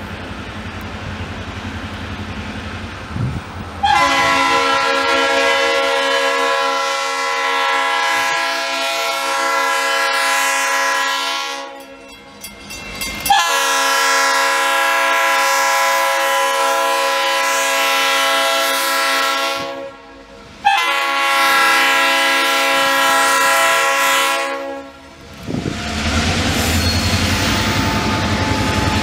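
Diesel locomotive air horn sounding two long blasts and a shorter third, the opening of a grade-crossing signal, as the locomotive approaches. After the horn stops, the locomotive's diesel engine and wheels are heard running as it draws near.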